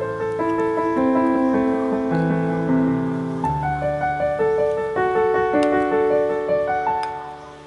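Background piano music, sustained notes changing every second or so, dipping in level near the end.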